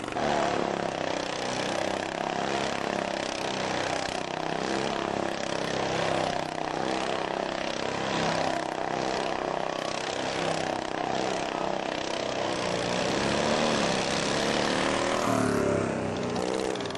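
Modified racing riding-mower engines running hard, the pitch rising and falling as they rev, with a clear glide in pitch near the end.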